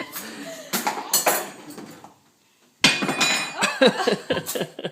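Dishes and cutlery clinking and knocking together as a dishwasher is unloaded, in two bursts of handling with a short pause between them.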